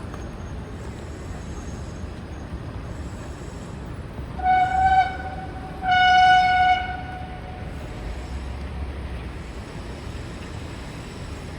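A vehicle horn honks twice, a short blast and then a slightly longer one about a second later, over steady street traffic rumble.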